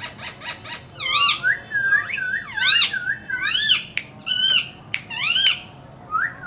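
Indian ringneck parrot calling: a quick run of clicks, then loud arching whistled squawks about once a second, and near the end a run of short wavering whistle notes.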